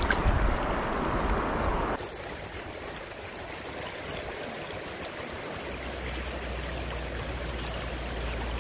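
River water rushing over shallow rocky riffles as a steady wash of noise, with a click right at the start. About two seconds in it switches abruptly to a quieter, airier recording of the same rushing current.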